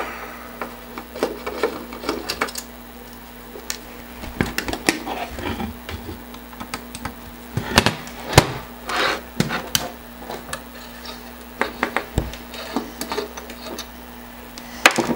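Screwdriver turning screws out of the sheet-metal shield of a slim 5.25-inch floppy drive, with irregular small clicks, scrapes and taps of metal as the drive is handled; a few louder knocks come around the middle.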